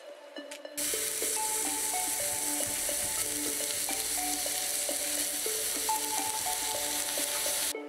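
Raw ground-beef kofta kebab skewers sizzling on a hot ribbed grill plate. The sizzle starts about a second in and cuts off abruptly near the end, over soft background music of held notes.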